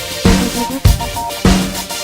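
Background music with a steady drum-kit beat: heavy kick and snare hits about every 0.6 seconds under held synth-like notes.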